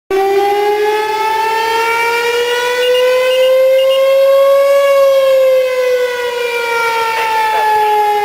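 Fire station's house siren sounding loud for a structure-fire call, alerting the volunteers. Its wail rises slowly in pitch for about five seconds, then falls.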